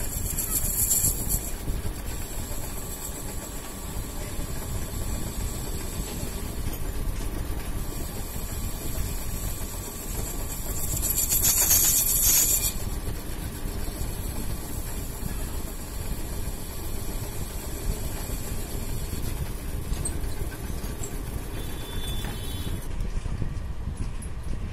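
Metal lathe running and its tool bit cutting a hardened steel manual-gearbox hub: a steady machine rumble under a hissing scrape of the cut, which flares up at the start and again about twelve seconds in. The cutting hiss stops a couple of seconds before the end.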